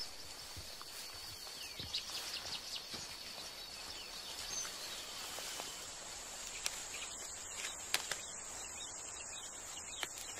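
Faint montane forest ambience: a steady, high-pitched insect drone that shifts higher about six seconds in, with a few soft ticks.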